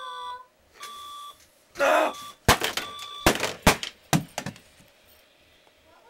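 Digital bedside alarm clock beeping in short repeated bursts. About two seconds in comes a loud noisy burst, then a run of hard, sharp knocks as the clock is beaten, and the beeping stops.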